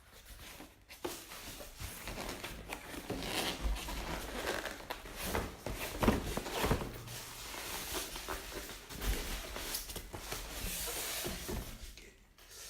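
Rustling and handling of packaging while items are taken out of a monitor box, with scattered knocks, the loudest about six seconds in.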